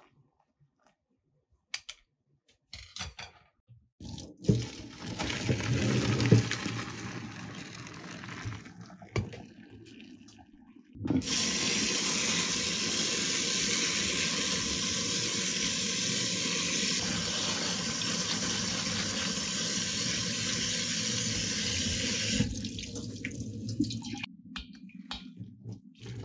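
Water splashing unevenly in a stainless steel sink, then a kitchen tap running hard and steadily onto freshly boiled soba noodles in a mesh strainer for about eleven seconds as they are rinsed, stopping into quieter splashing near the end.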